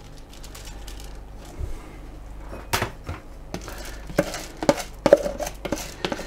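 Wooden spoon knocking and scraping against a container as rice is tipped out into a cooking pot, a string of irregular sharp taps starting a little over halfway through.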